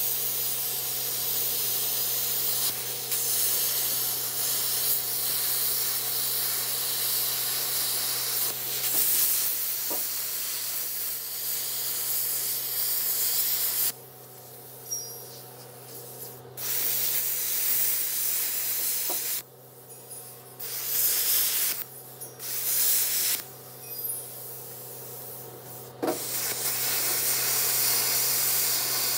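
MIG welder arc hissing and crackling as a bead is run while welding a new pintle hitch onto a trailer drawbar. The arc runs continuously for about the first half, stops, then comes back in several short one-second bursts, and runs steadily again near the end.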